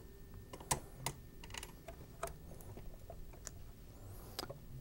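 Faint, irregular small clicks and taps of snap-ring pliers working the metal snap rings out of the top of an air dryer column, the sharpest click just under a second in.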